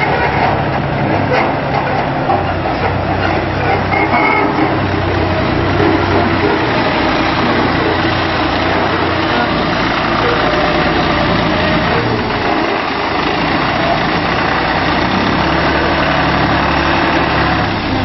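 Balkar B-525 tractor-driven combine harvester running as it drives slowly over soft soil: a steady, loud engine-and-machinery noise with a low engine hum underneath.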